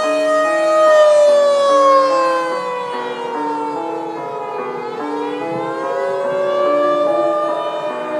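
Background music: a held synth tone slides slowly down and then back up like a siren, over a repeating pattern of short stepped notes.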